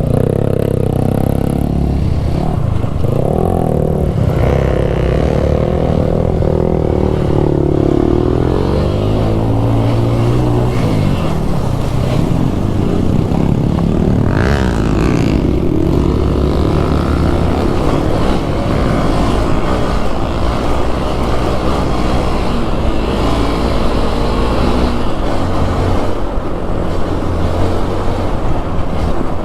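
Motorcycle engine running under load on an off-road trail. The revs rise and fall repeatedly through the first half, then settle into a steadier drone.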